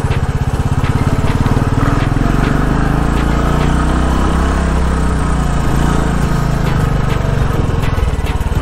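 Royal Enfield Classic's single-cylinder engine running under load as the motorcycle climbs a rough dirt track, its engine speed rising and easing off several times, with light rattles over the bumps.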